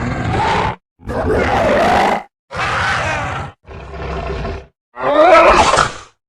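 Sound effects for the Irritator, a spinosaurid dinosaur: five short growling roars in a row, each about a second long with brief silences between, the last and loudest rising and falling in pitch.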